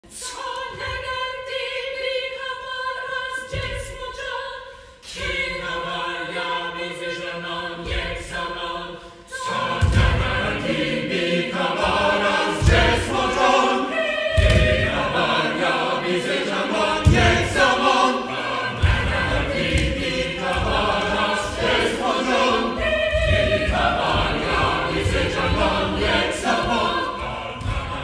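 Choir singing held chords, most likely from the oratorio itself. About ten seconds in the music grows fuller and louder, with low thuds recurring beneath the voices.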